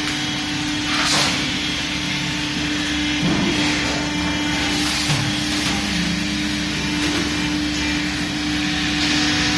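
Hydraulic CNC press brake (100-ton) running, its hydraulic pump giving a steady hum with a constant whine, and a short louder rush about a second in.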